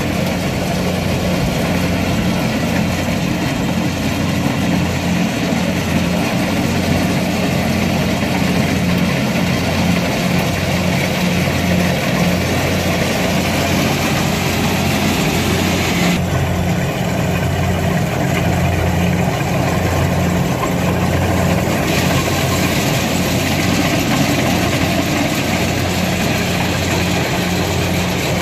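Kubota DC-70 combine harvester's diesel engine running steadily under load, with a hiss of working machinery over it. The upper part of that hiss drops away for several seconds about two-thirds of the way through, then returns.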